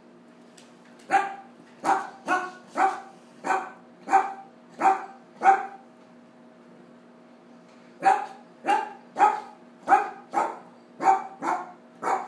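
Cavalier King Charles Spaniel barking repeatedly, in two runs of about eight barks each with a pause of about two seconds between them.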